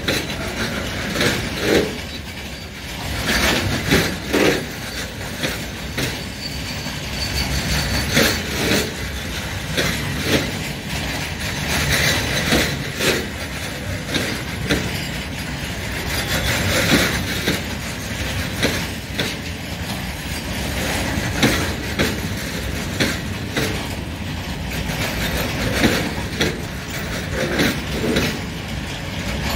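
Freight train of open-top wagons rolling past close by: a continuous rumble of wheels on rail, broken by irregular clanks and knocks as the wagons pass.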